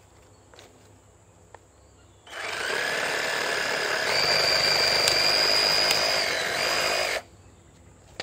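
Bull BL 523 cordless reciprocating saw cutting a thin rubber tree branch. It starts about two seconds in, its motor whine steps up in pitch about halfway through as it speeds up, and it stops suddenly about a second before the end.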